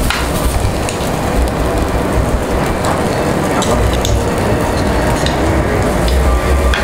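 Pork sizzling on a Korean barbecue tabletop grill over a steady low rumble of the grill's overhead ventilation, with scattered clicks of kitchen scissors and tongs against the meat and the metal grill plate.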